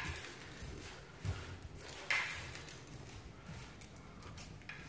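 Quiet room tone with a few soft knocks and a brief rustle: footsteps and handling noise as the recording phone is carried between rooms.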